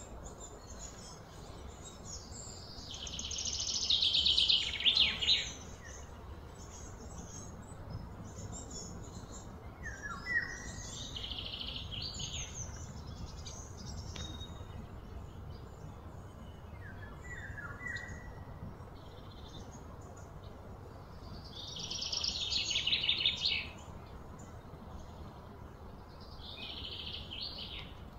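Birds calling outdoors: two loud, fast trilled songs that build up and then stop, about three seconds in and again about twenty-two seconds in, with short chirps between. A steady low rumble runs underneath.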